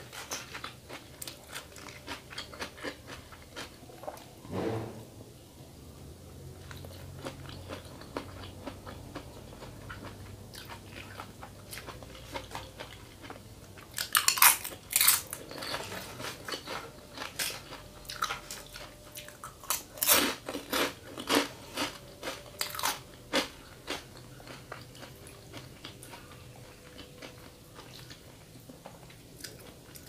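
A person biting and chewing crunchy fried food: crisp crunches and mouth sounds, with the loudest crunching about fourteen seconds in and again from about twenty to twenty-three seconds.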